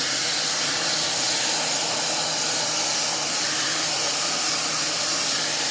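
Fentgo ionic hair dryer with a diffuser attached, running steadily: an even rush of blown air over a faint low motor hum.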